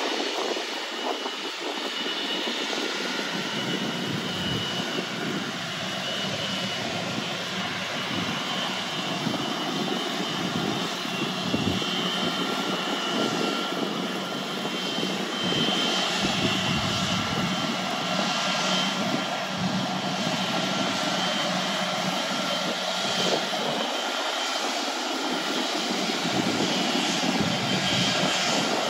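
Airplane engines running steadily with a faint high whine as the aircraft moves across the airfield, with uneven low rumbles of wind on the microphone.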